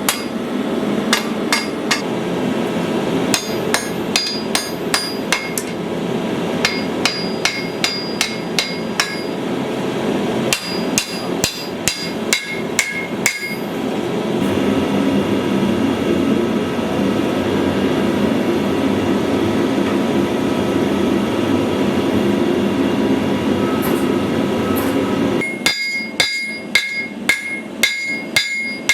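Hammer blows forging a steel sword blade on an anvil, in runs of several strikes at about three a second with a bright ring. A steady rushing noise lies under the strikes and stops near the end, after which the hammering rings out more clearly.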